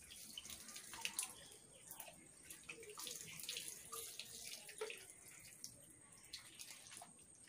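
Water splashing and pouring during a hair wash, with many small, sharp splashes.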